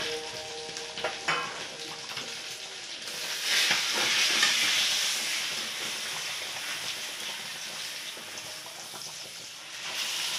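Sour tamarind-and-tomato fish curry bubbling and sizzling at a boil in a metal kadai. The sizzle swells for a second or two a few seconds in.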